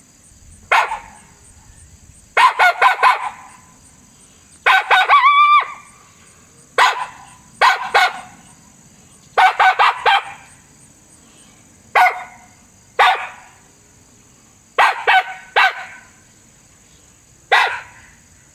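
Coyote barks imitated on an MFK latex diaphragm call, blown in quick bursts of air with the call held loose and tilted forward to give a raspy tone. Short barks come singly and in quick runs of two to four, with one longer, pitched bark about five seconds in.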